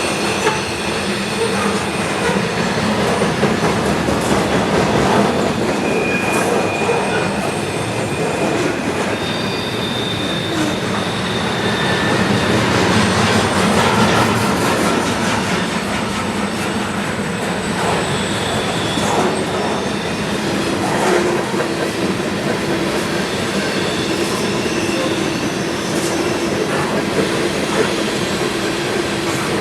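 Freight train rolling past: a steady rumble of cars and wheels with scattered clicks and knocks from the rail joints. Short high wheel squeals come and go several times.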